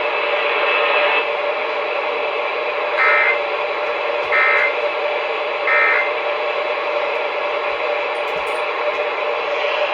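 Three short buzzy data bursts about a second apart, the Emergency Alert System end-of-message code that closes a broadcast warning. Steady radio static with a constant tone runs underneath.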